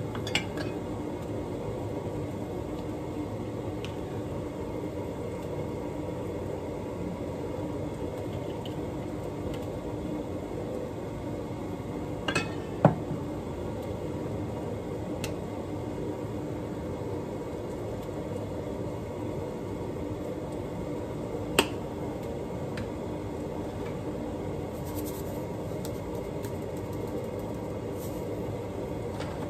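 Steady kitchen background noise with a few sharp clinks of kitchenware, the loudest about thirteen seconds in. Near the end comes a faint rattle of pepper being shaken from a jar.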